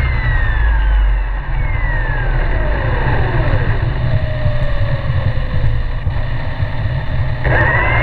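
Helicopter running with a strong low rumble. Its engine whine slides down in pitch over the first few seconds, then rises sharply again near the end.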